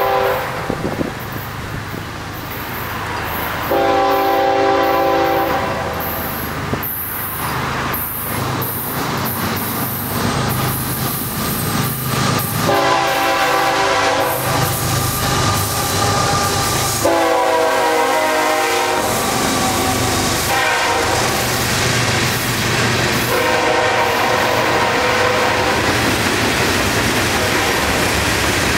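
Florida East Coast freight train's diesel locomotive horn sounding a long, a long, a short and a long blast, the grade-crossing signal, as the train approaches. Beneath it runs the rumble of the locomotives, then the clatter of the freight cars rolling past on the rails.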